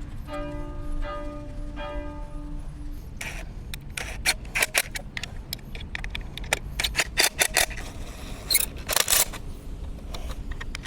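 Brief plucked background music, then a series of irregular sharp clicks and a few longer scrapes from bolts, nuts and lock washers being fitted and worked with hand tools.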